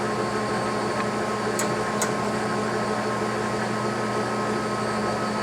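LeBlond Regal Servo-Shift geared-head engine lathe running steadily with its carriage on power longitudinal feed: an even hum and whine from the headstock gearing and drive. Two faint light ticks come about a second and a half and two seconds in.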